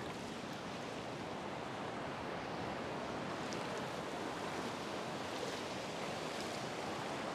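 Ocean surf: a steady rush of small waves breaking and washing up over the sand.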